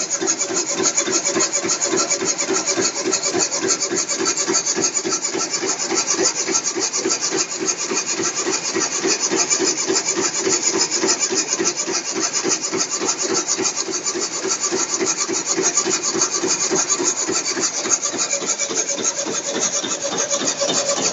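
Shuttleless rapier loom with a dobby, running at speed while weaving cotton cloth: a loud, rapid, even clatter of many machine strokes a second, with no change in pace.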